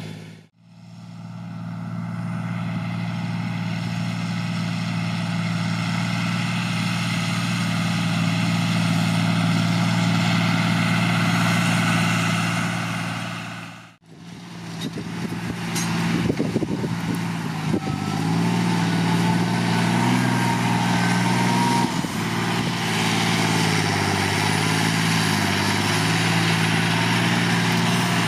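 John Deere 8100 tractor's six-cylinder turbo-diesel engine running steadily while working a stubble field. The sound drops out briefly twice, and after the second break the engine note rises and falls a few times.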